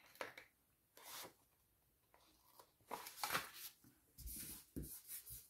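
Paper pages being handled and slid across a desk: a string of short, faint rustles and scrapes, with a few soft knocks near the end.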